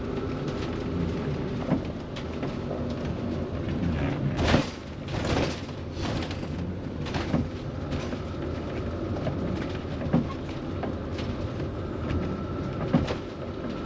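Motorhome on the move: steady engine and road noise heard from inside the cab, with occasional knocks and rattles. Two louder rushing swells come about four and a half and five and a half seconds in.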